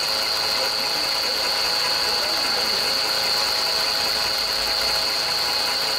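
Volkswagen Polo 4 engine running steadily with a fast, even mechanical ticking and a steady high-pitched whine over it: the abnormal engine noise whose source the mechanic asks viewers to find.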